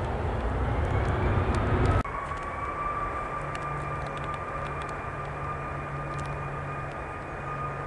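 Jet engines of an Airbus A340-500, its four Rolls-Royce Trent 500s, spooling up for takeoff: a low rumble under a rising whine. About two seconds in, the sound breaks off abruptly and carries on as a steadier high whine as the jet rolls along the runway.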